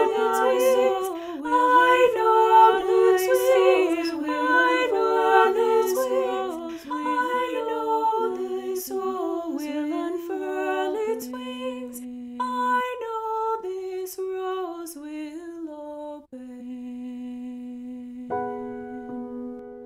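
Unaccompanied singing: a moving sung melody with its consonants audible, thinning out to a single held low note about four fifths of the way in. A sustained keyboard chord comes in near the end.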